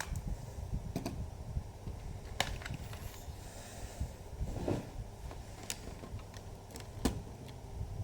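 A few sharp clicks and taps at irregular intervals, as a laptop's keys and touchpad are worked, over a steady low rumble.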